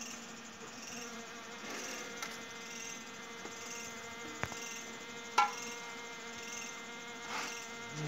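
Honey bees buzzing in a steady hum around their opened nest as the comb is pulled from it. A sharp knock about five seconds in.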